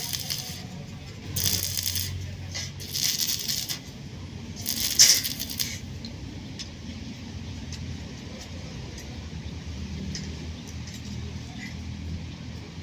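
Four short bursts of gritty rattling and scraping in the first half, then only faint scattered clicks.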